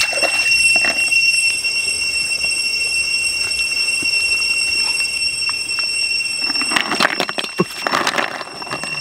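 A steady high-pitched whine of several tones throughout. About seven seconds in, a clatter and splash as a basket of large river snails is tipped into a wok of steaming water.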